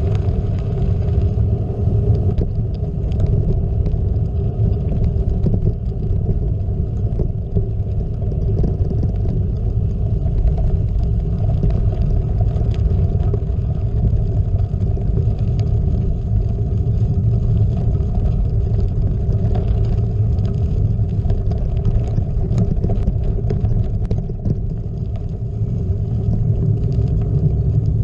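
Gravel bike rolling along a gravel road, heard through a GoPro: a steady low rumble of tyres on gravel and wind on the microphone, with scattered light ticks of grit and rattle.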